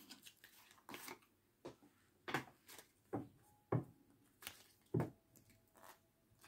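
A deck of reading cards handled and shuffled by hand: about ten faint, soft taps and flicks at irregular intervals.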